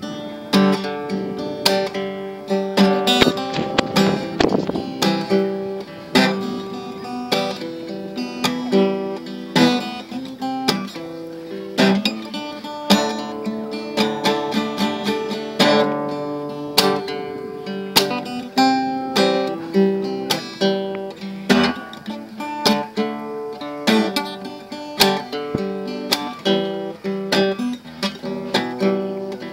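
Acoustic guitar music: chords strummed in a steady rhythm, changing chord every few strokes.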